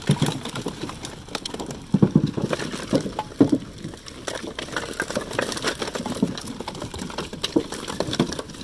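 Split firewood tumbling off a pickup's tailgate onto a pile, pieces knocking and clattering wood on wood in a long irregular run, heaviest about two to three and a half seconds in.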